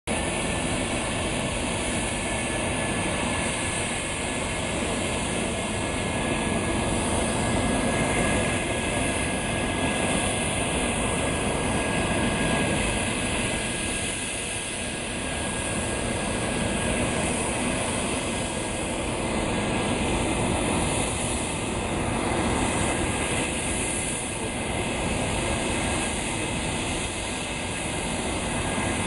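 English Electric Lightning's twin Rolls-Royce Avon turbojets running: a steady roar with a thin high whine over it, swelling and easing a little every few seconds.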